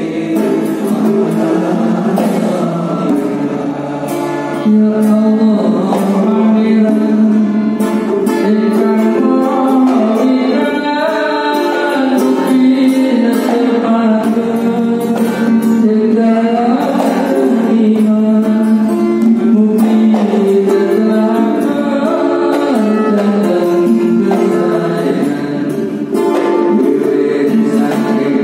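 A group singing a song together in unison, accompanied by strummed acoustic guitars.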